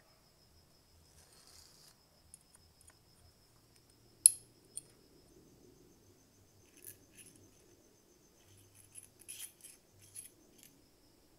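Small steel parts of a tile cutter's crank handle clinking and clicking as they are fitted together by hand: a washer, the threaded crank rod and the handle. There is one sharp metallic tap about four seconds in, then lighter clicks, and a cluster of clinks near the end.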